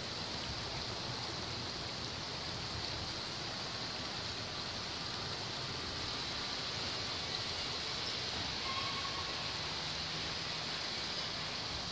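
Steady hiss of steam from BR Standard Class 4MT steam locomotive No. 75078, with no exhaust beats.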